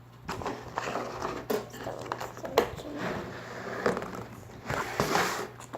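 Handling noise: irregular rustles, light knocks and clicks as a slime is put away in its plastic pot and the next one is picked up, over a steady low hum.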